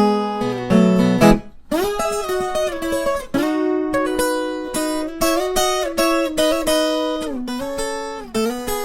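Viola caipira, the Brazilian ten-string steel-strung guitar, playing an instrumental moda de viola in plucked notes, with a brief break in the playing about one and a half seconds in.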